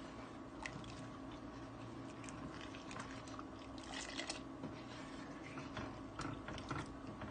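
Wooden spoon stirring milk in a stainless steel pot, with light clicks and scrapes of the spoon against the pot and liquid sounds of milk pouring back from the spoon about four seconds in. A steady low hum runs underneath.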